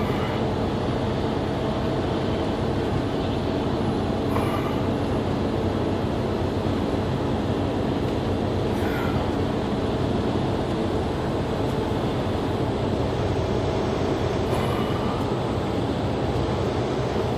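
Steady drone of a semi-truck's engine and tyre noise heard from inside the cab while driving.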